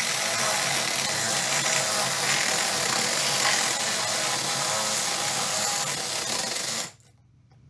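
Mini cordless electric chainsaw with a brushed motor running and cutting lengthwise along the grain of a wooden board (a rip cut), the chain rasping steadily through the wood. It stops suddenly near the end.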